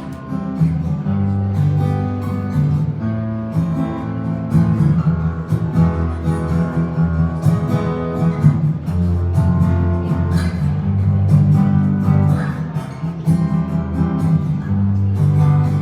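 Acoustic guitar playing an instrumental passage of chords and bass notes, with no singing.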